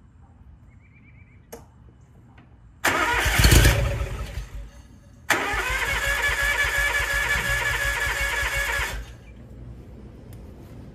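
Kawasaki FD731V liquid-cooled V-twin engine turned over on its electric starter in two tries, first for about two seconds and then, after a short pause, for about three and a half seconds, cutting off suddenly each time. It is choked and primed with carb cleaner on a gummed-up carburetor and does not stay running.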